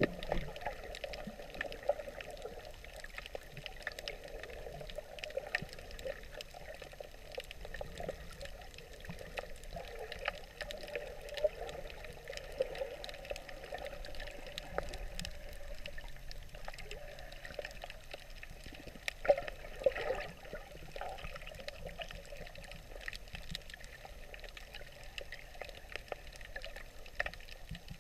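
Muffled water noise heard with the camera underwater: a steady swishing and trickling, with scattered faint clicks and two sharper knocks about 19 and 20 seconds in.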